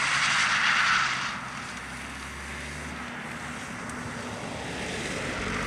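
BMW 320d diesel saloon driven hard on a circuit: a loud rush of tyre and engine noise in the first second or so as it slides past, then the engine running steadily further off, swelling again near the end.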